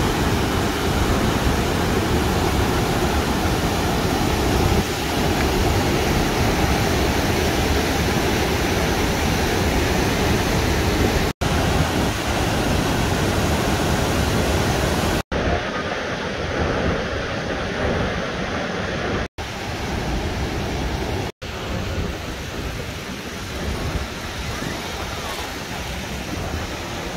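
Steady roar of rushing water at Niagara Falls, a dense even noise with no distinct events. It breaks off for an instant at edits about 11, 15, 19 and 21 seconds in, and after the second break it is duller, with less hiss.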